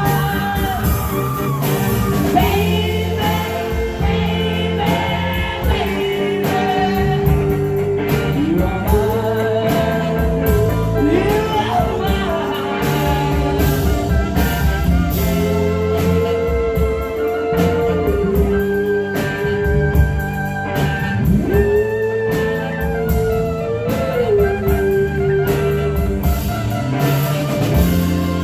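Live band playing a song, a singer holding long sustained notes over guitar, bass and drums.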